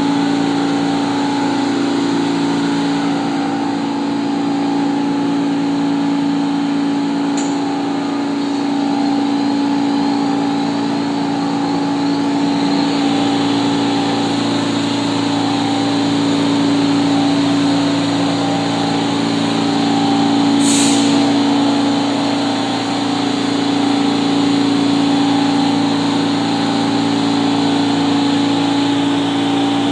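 R46 subway train with a steady droning hum, the low part of the drone shifting about halfway through, and a short burst of air hiss about two-thirds of the way through.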